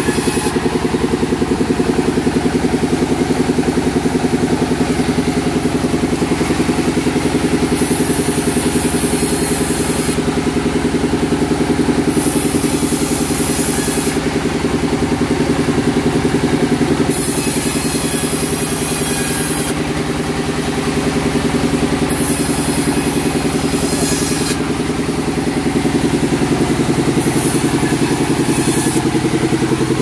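Sawmill machinery: an engine runs steadily throughout. A high hiss comes and goes every few seconds over it.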